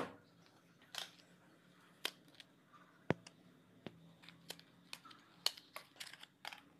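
Light, irregular clicks and rustles of a small cardboard box of silicone sealant being turned over and opened by hand.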